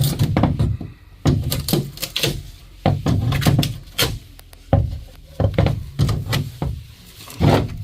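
Hammer striking the boat's fiberglass transom over and over, a dozen or more irregular blows on a leftover skin of plywood over a void, sounding out where the laminate is hollow and where it is solid.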